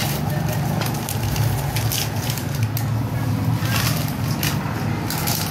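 Plastic snack wrappers crinkling and crackling in irregular bursts as they are handled and cut for stuffing into ecobricks, over a steady low hum.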